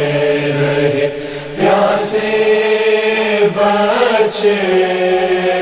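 Male voices holding a sustained vocal drone, the wordless backing chant of a noha sung without instruments; the held note shifts about one and a half seconds in, with a couple of short hissing sounds.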